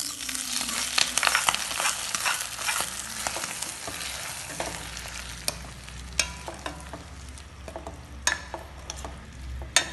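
Shallots and curry leaves fried in hot oil hit a steel pot of mushroom roast and sizzle, suddenly and hardest over the first few seconds, then die down as a plastic spoon stirs them in. Near the end the spoon knocks sharply against the pot a few times.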